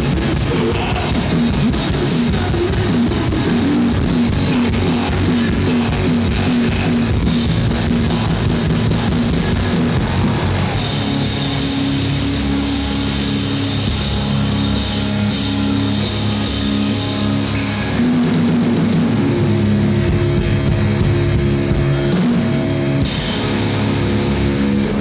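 Hardcore band playing live and loud on distorted electric guitars and drum kit. A fast, rapidly repeated riff gives way about ten seconds in to long held chords.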